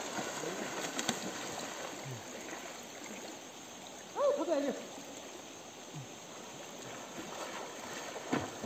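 River water running over a steady background, with light splashing from people in the pool. About four seconds in, a short call rises and falls in pitch; it is the loudest sound.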